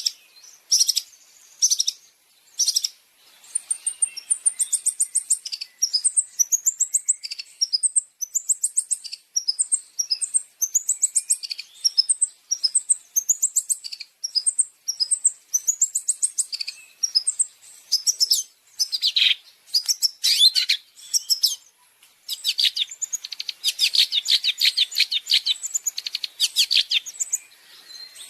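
Long-tailed shrike (cendet) song: a rapid, continuous run of high chattering and whistled phrases, turning into a fast, dense trill of repeated notes in the last few seconds.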